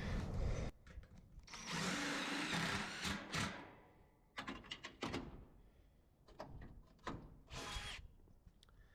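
A power drill/driver running in two bursts, a longer one of about two seconds and a short one near the end, with clicks and knocks in between.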